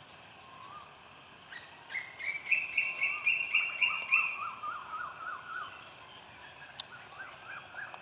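Wild birds calling. A soft rising note comes first, then from about two seconds in a loud run of rapidly repeated notes at two different pitches that overlap and fade after about four seconds. A shorter run of repeated notes follows near the end.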